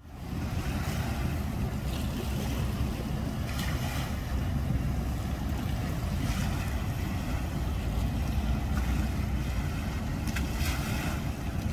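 Boat-ramp ambience: a steady low rumble with wind on the microphone and lake water washing around the ramp.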